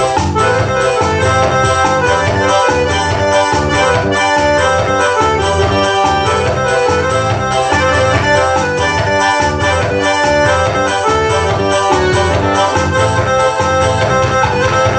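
Korg Pa50 arranger keyboard playing a forró-style arrangement: an accordion voice carries the melody over an accompaniment with a steady drum beat.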